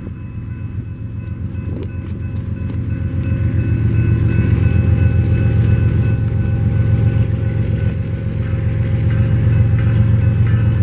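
Union Pacific diesel freight locomotives passing. A heavy low engine rumble grows louder over the first few seconds and then holds steady, with faint steady high tones above it.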